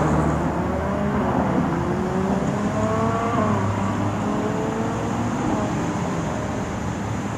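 Road traffic with a car accelerating: its engine note climbs steadily, dips about three and a half seconds in, then fades under the steady traffic noise.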